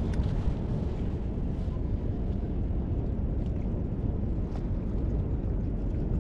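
Wind blowing across the microphone: a steady low rumble that rises and falls, with a few faint ticks.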